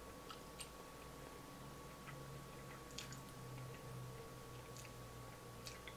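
Faint, scattered soft mouth clicks of a man chewing a piece of chocolate bar, over a thin steady electrical hum.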